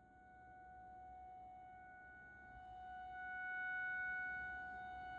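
Faint emergency warning siren holding one steady pitch; it swells in loudness about three seconds in and eases off again before the end.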